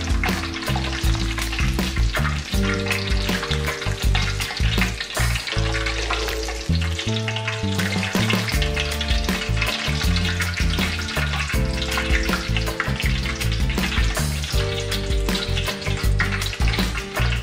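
Chopped garlic deep-frying in hot oil in a wok, sizzling steadily, with soft background music and bass underneath.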